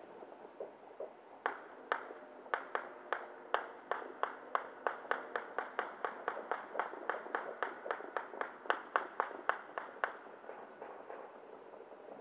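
Distant gunfire: about thirty sharp shots in a steady string, roughly three or four a second, each with a short echo. The string starts about a second and a half in and stops near ten seconds, with fainter scattered pops before and after.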